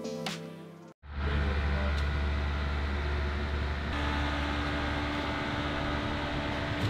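Electronic background music ends about a second in and is followed by a steady mechanical hum with a strong low drone. A steady higher tone joins it about four seconds in.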